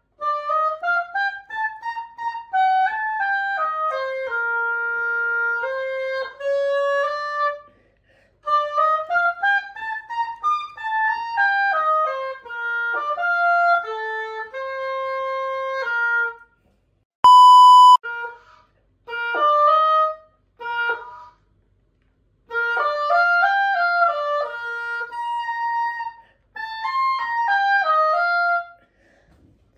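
A Howarth oboe playing melodic phrases of stepwise and leaping notes, with short breaks between the phrases. About halfway through, a loud steady beep lasting about a second cuts in.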